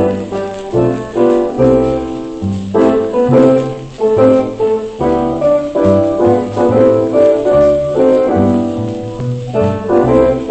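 Instrumental introduction of a foxtrot played from an old 78 rpm shellac record, a small dance band with a steady bass beat and no singing yet.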